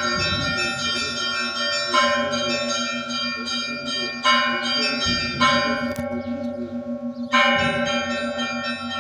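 Russian Orthodox church bells ringing. Heavier strokes land about every one to two seconds over a continuous ring, with a fast steady pulse beneath.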